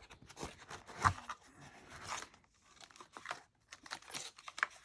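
Plastic packaging crinkling and rustling as accessories are handled, with a small knock about a second in.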